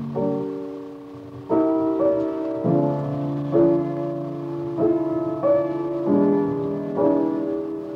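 Solo piano playing a slow introduction: chords and notes struck roughly once a second, each left to ring and fade.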